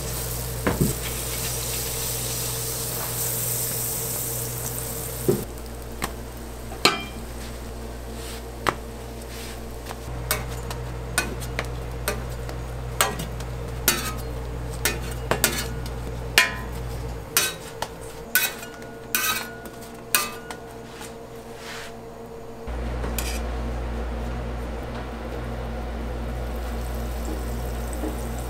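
Cooking on a flat-top griddle: a steady light sizzle over a low hum, with a string of sharp metal clicks and taps, roughly one a second, through the middle stretch.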